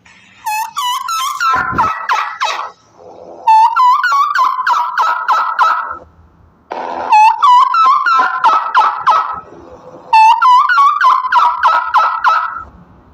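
A turkey gobbling: four gobbles in a row, each a fast rattling run of notes lasting two to three seconds, with short pauses between them.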